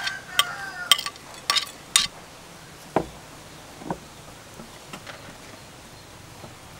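A metal utensil clinks sharply against a plate about four times in quick succession as dried shrimp is scraped off onto a serving plate. Two softer knocks follow, then it goes quiet.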